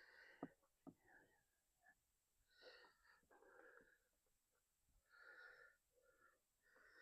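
Near silence with a person's faint wheezy breathing: a few soft breaths a second or so apart.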